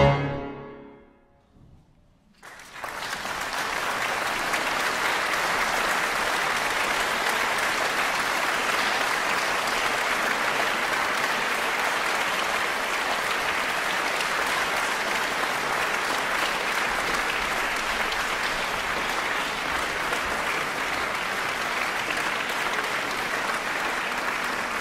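The final chord on a Steinway grand piano, played four hands, rings and dies away. After about two seconds of hush, an audience breaks into applause that goes on steadily.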